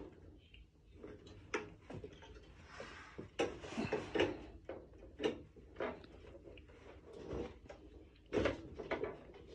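Faint handling noise as the parts of a Halloween prop are worked on: rustling with scattered light knocks and clicks every second or so, the loudest about eight and a half seconds in.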